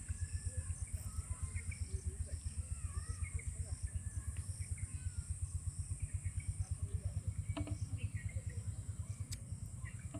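Birds chirping and calling, short rising and falling calls, over a steady, fast low throbbing of about ten pulses a second and a constant high hiss.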